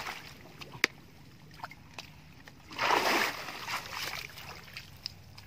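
Shallow water splashing and sloshing, with a sharp click about a second in and a short, louder splash around three seconds in.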